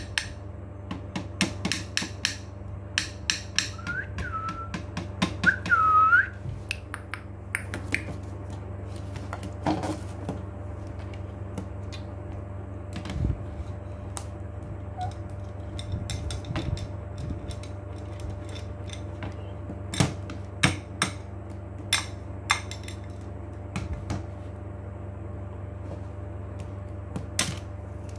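Alexandrine parakeet tapping and clicking its beak on a hand mirror and plastic toys in irregular sharp taps, with a few short whistles about four to six seconds in, the last one bending sharply in pitch.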